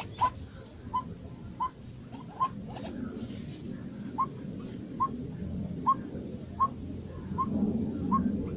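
A bird giving short, repeated chirps, about one every three-quarters of a second, with a brief pause partway through, over a low steady rumble.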